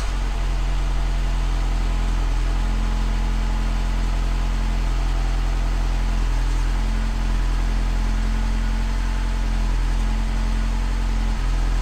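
BMW F30 316i's N13 1.6-litre turbocharged four-cylinder running steadily at the tailpipe just after a cold start, now with a new coolant temperature sensor fitted. The owner still feels some misfires in it.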